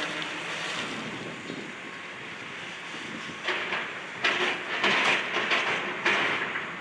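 Excavator demolishing a building: a steady mechanical din, then from about halfway a run of five or so loud crashes and scrapes of breaking debris.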